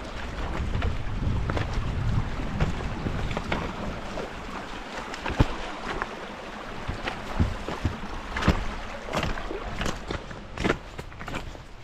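Wind buffeting the microphone with a low rumble, giving way about four seconds in to irregular footsteps crunching through snow.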